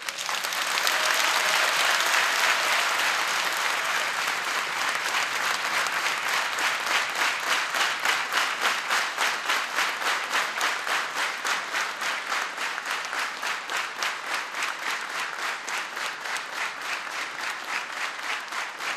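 A large hall audience applauds. Dense scattered clapping settles after about five seconds into rhythmic clapping in unison, gradually getting quieter.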